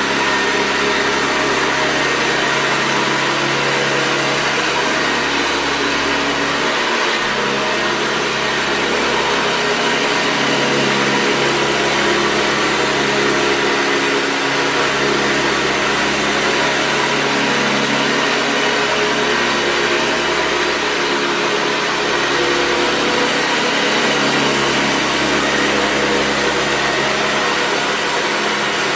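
Hoover Convertible U4193 upright vacuum cleaner running steadily: a loud, even motor-and-fan whir with a steady hum and no change in speed.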